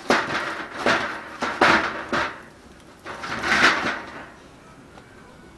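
Firewood being pushed and shifted in an open wood fire: a handful of scraping, knocking bursts of wood on wood, the longest about three and a half seconds in, then quieter.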